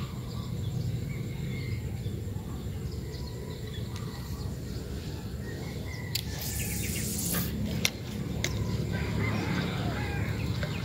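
Small birds chirping over a steady low outdoor rumble. About six seconds in there is a brief hiss, followed by a sharp click near eight seconds.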